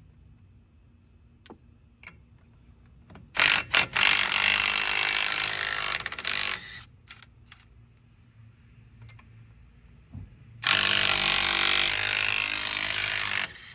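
Small impact wrench running lug nuts onto a car wheel in two runs of about three seconds each, the first starting about three and a half seconds in after a short burst, the second about eleven seconds in.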